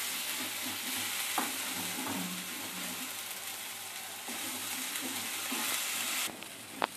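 Masala paste of onion, ginger-garlic and coriander-cumin frying in mustard oil in a kadai over a low gas flame: a steady sizzle while a spatula stirs and scrapes it through the pan. The sizzle drops suddenly near the end, followed by a couple of sharp taps of the spatula.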